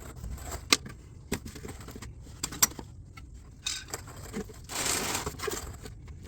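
Sharp metallic clicks and knocks, then a scraping rush lasting about a second about five seconds in, as the drive shaft's slip yoke is worked and pulled out of the transmission output shaft housing.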